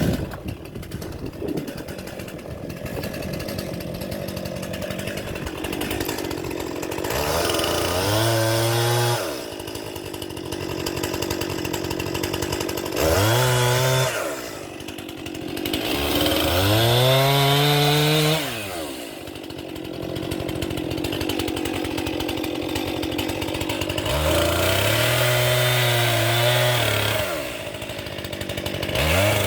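Two-stroke chainsaw running without a break, its engine pitch rising and falling in about five swells as the throttle is opened and eased off, with a steadier noisy running sound in between.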